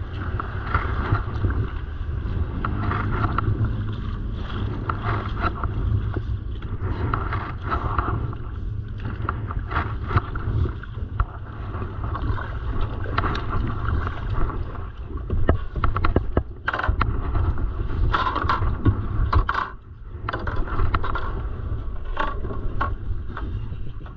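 Kayak on choppy water: water splashing and slapping against the hull and paddle, over a steady rumble of wind on the microphone. A run of sharper knocks and scrapes comes about two-thirds of the way through.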